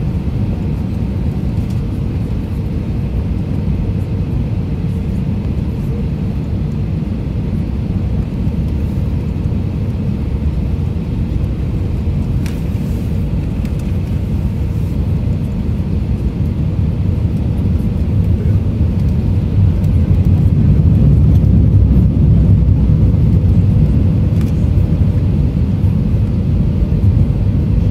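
Cabin noise inside an Airbus A319 on approach: a steady low rumble of airflow and its two IAE V2524-A5 turbofan engines. The rumble grows louder for several seconds past the middle, then eases slightly.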